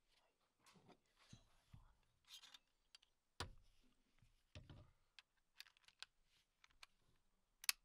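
Faint clicks and light knocks of metal gun parts being handled as a Smith & Wesson SW22 Victory pistol's upper assembly is brought to its frame and fitted back on, with one sharper click just before the end.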